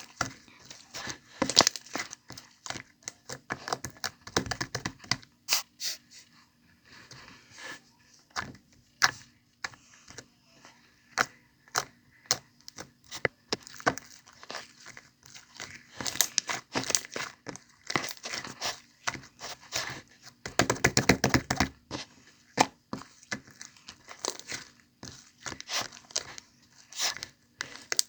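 Honey slime being squeezed and stretched by hand, giving a dense run of sticky clicks and small pops, with louder, busier spells of crackling now and then.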